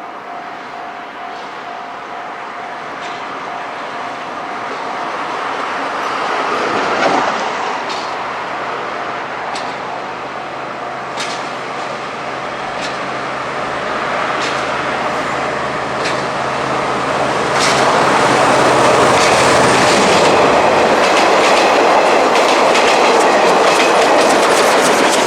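A train rolling slowly on Moka Railway track, its wheels clicking over the rail joints at a slow even pace, with a steady low hum under it. The rumble of the wheels grows louder as the train draws close and is loudest in the last third.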